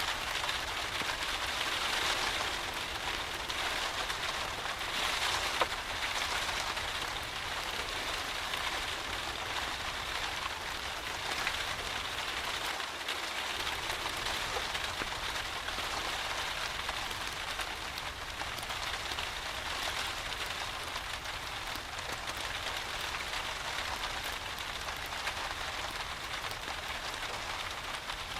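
Steady rain falling, an even hiss with a few faint clicks here and there.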